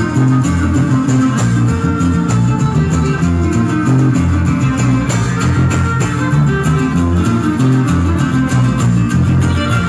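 Live huapango played by a string trio: a fiddle melody over briskly strummed guitars in a steady, lively rhythm.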